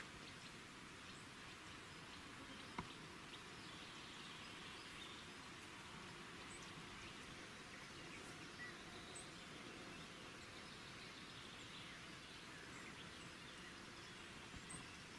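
Faint outdoor ambience: a steady hiss with a few short, high chirps scattered through it and one sharp click about three seconds in.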